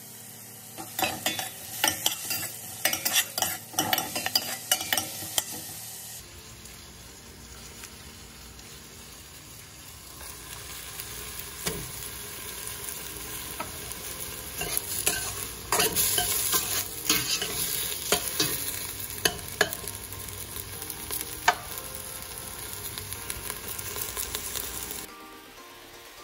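Chopped onion and carrot sizzling in a stainless steel pot as a metal spoon stirs them, with frequent clinks and scrapes of the spoon against the pot.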